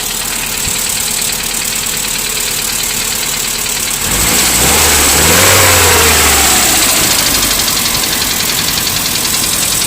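Carburetted ZMZ-406 four-cylinder petrol engine running on LPG, idling with a steady rapid knock, revved up briefly about four seconds in and then dropping back to idle. The knock sounds as if it comes from the top of the engine and is not the hydraulic lifters; it persists after new lifters, valves and head, and its cause is unknown.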